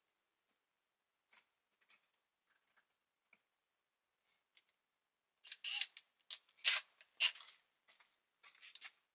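Workshop handling noises: scattered light clicks, then a busier run of short clatters and rustles in the second half as a cordless drill is brought to the bench.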